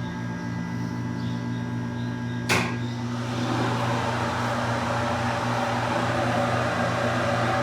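Hydraulic elevator power unit in its machine room: a steady electrical hum, a sharp click about two and a half seconds in, then a louder even rushing noise as the unit starts to run.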